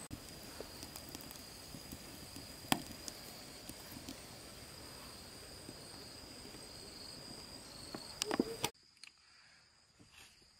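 Steady high-pitched insect drone, with scattered knocks and clatter of handling and a louder clatter near the end; then the sound drops away suddenly.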